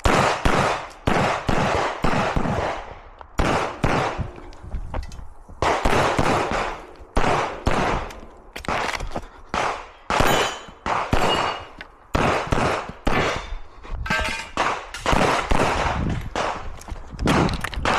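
9mm CZ Shadow 2 pistol firing rapidly, mostly in quick pairs of shots, with a short pause about four to five seconds in before the shooting carries on.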